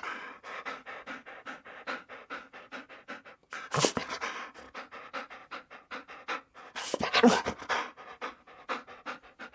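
A dog panting rapidly, about four breaths a second, louder for a moment about four and seven seconds in.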